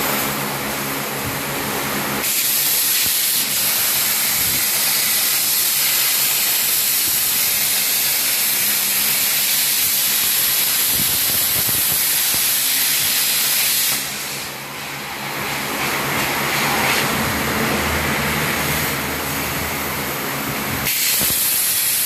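A CNC machine running with a loud, steady hiss over a low hum. The hiss eases off about fourteen seconds in and comes back strongly near the end.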